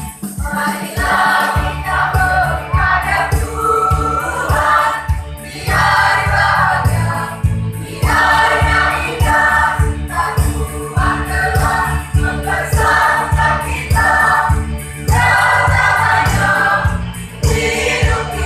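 A choir of young voices singing together over an electronic keyboard accompaniment that keeps a steady, pulsing bass beat.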